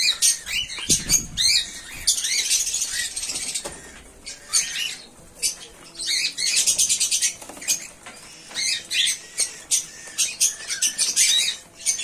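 Cockatiels in an aviary chirping and squawking continually, many quick high calls overlapping in bursts. There is a low thump about a second in.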